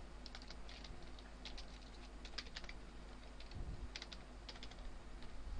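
Typing on a computer keyboard: irregular quick runs of key clicks with short pauses between them.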